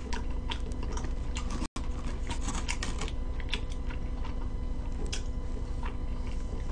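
Irregular small clicks and taps of eating hotcakes with a plastic knife and fork: cutlery on the plastic tray and chewing close to the microphone. A steady electrical hum runs underneath, and the sound drops out for an instant about two seconds in.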